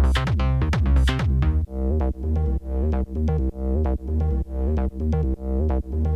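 Background electronic techno music with a deep bass and a steady beat. About one and a half seconds in, the busy drums drop out, leaving a synth-and-bass loop that pulses about twice a second.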